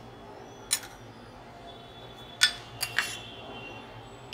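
Steel spoon clinking against a glass bowl while stirring beaten eggs: a few sharp clinks, the glass ringing briefly after them.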